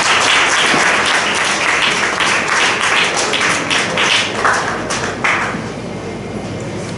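Audience applauding: dense, fast clapping that thins out and dies down after about five seconds.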